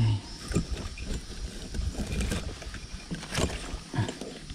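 Hands pulling wet, tangled water weeds off a kayak's pedal drive: rustling and scattered knocks and clicks against the plastic hull, with a short low thump at the very start.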